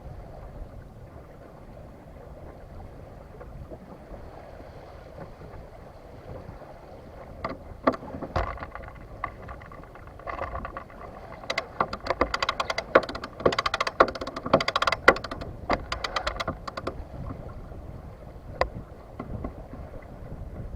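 Small sailboat under way in light wind, with a steady low wash of water and wind. Through the middle comes a long run of rapid sharp clicks and rattling knocks from the boat's gear, loudest about halfway through.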